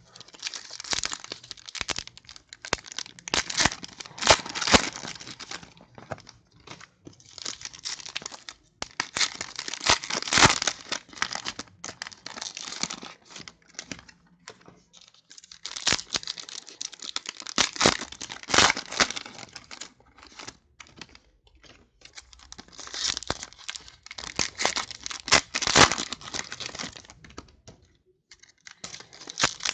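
Trading card pack wrappers being torn open and crinkled by hand, in several spells of crackling a few seconds long with short pauses between.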